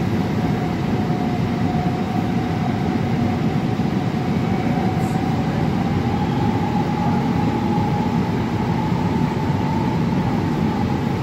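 AnsaldoBreda P2550 light rail car running along the line, heard from inside the car: a steady rumble of wheels on track under a single whine from the drive that rises slightly in pitch around the middle.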